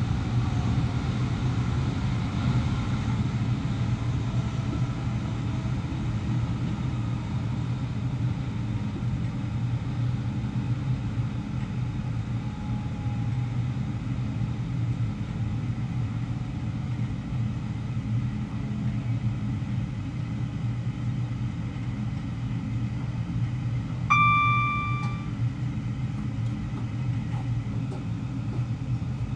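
Class 350 Desiro electric multiple unit running along the line, heard from the driver's cab: a steady low rumble of wheels on the track and the train under way. Near the end a single steady electronic cab warning tone sounds for about a second.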